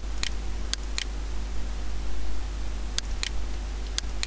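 Computer mouse button clicking, about seven sharp single clicks with a pause of about two seconds in the middle, over a steady low hum and hiss.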